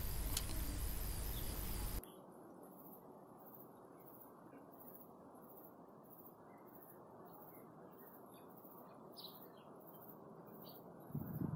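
Steady hiss for about two seconds that cuts off suddenly, then quiet outdoor ambience with a few faint bird chirps now and then. A louder rustle of handling comes in at the very end.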